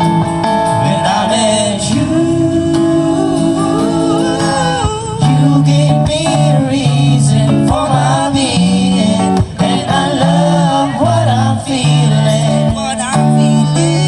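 Live acoustic cover of a slow ballad: acoustic guitar accompaniment under male singing, with held and bending vocal notes.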